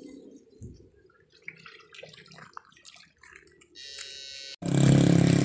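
Faint splashing and trickling of a person wading through shallow canal water. Near the end a loud, steady droning hum starts abruptly and drowns it out.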